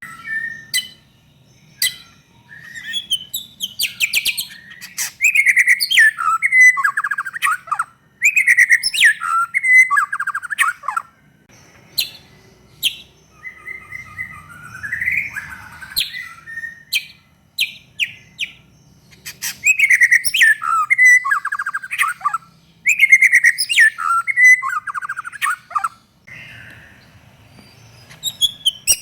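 White-rumped shama (murai batu) singing loudly and vigorously: varied phrases of rapid trills, whistled notes and clicky calls in bursts of a few seconds, with short pauses between them.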